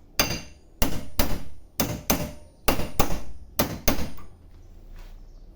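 Repeated hammering strikes, about nine, mostly in quick pairs, driving a new bearing into place in an Electrolux LTE12 washing machine repair, with the old bearing set on top as a driver. The strikes stop about four seconds in.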